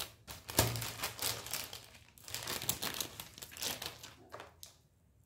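Packaging crinkling and rustling in irregular bursts as it is handled, stopping shortly before the end.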